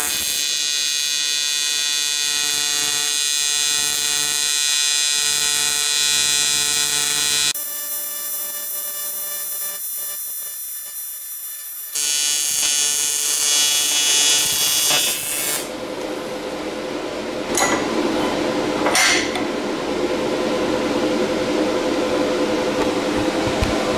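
AC TIG welding arc on aluminium from a PrimeWeld TIG225x, a steady buzz that changes character for a few seconds in the middle. The arc stops about 15 seconds in, leaving a steady shop hum with two short clicks.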